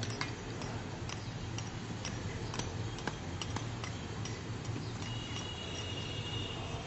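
Sharp hammer blows, about two a second, of manual demolition work on brick, over a steady low hum of traffic. A thin, high, steady tone joins about five seconds in.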